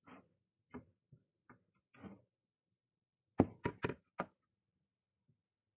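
Several soft knocks, then four sharper knocks in quick succession about three and a half seconds in: an axe being handled on a hard floor, its wooden handle and steel head knocking against the surface.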